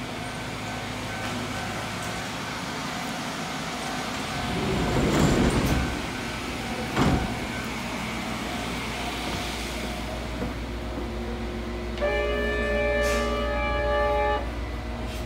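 Narrow-gauge electric train standing at a station, heard as the filmer boards: a steady low hum, a rush of noise about five seconds in, and a sharp knock about two seconds later. Near the end a steady electronic signal of several tones at once sounds for about two and a half seconds.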